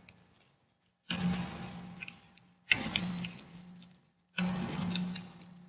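A 1/4-inch torque wrench ratcheting and clicking as it tightens the battery's terminal nuts. The metallic clicks come in four short bursts about a second and a half apart, each starting suddenly and fading, with a faint steady hum underneath.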